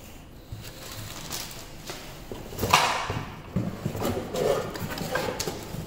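Hands unpacking a corded power saw from its cardboard box: plastic wrapping and cardboard rustling and light knocks as the cord and saw are handled, with a louder rustle just under three seconds in.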